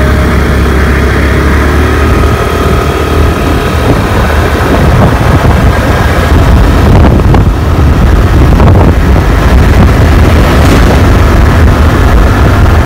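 Suzuki Access 125 scooter's single-cylinder engine accelerating from a pull-away up to riding speed, with heavy wind buffeting on the microphone.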